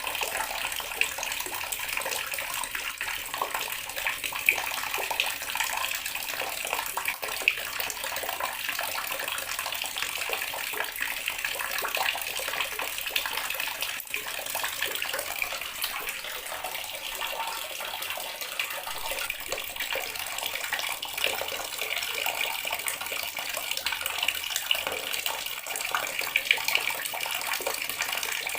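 Water running steadily from a tap, a continuous splashing stream with no change in flow.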